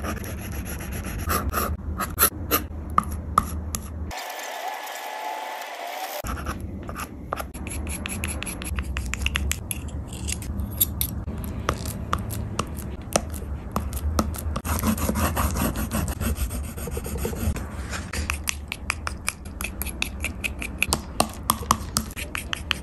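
Oil pastel sticks rubbing and scratching across paper in many short, quick strokes, with a palette knife scraping and pressing the pastel into the sheet.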